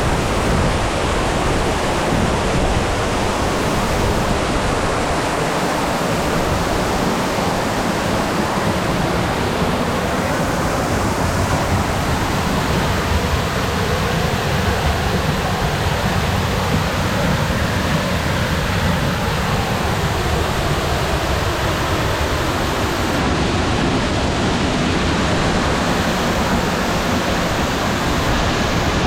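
Florence Falls, a waterfall, pouring steadily into its plunge pool: a constant rush of falling water.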